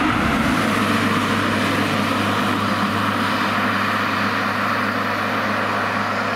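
Porsche 911 Turbo's twin-turbo flat-six engine running at a steady pace as the car drives past and pulls away up the road, its sound easing slightly as it recedes.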